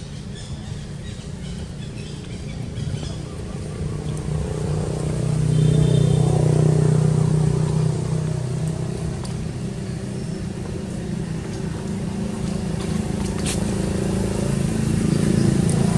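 A motor vehicle's engine running nearby, a low steady hum that swells to its loudest about six seconds in, eases off, then builds again near the end.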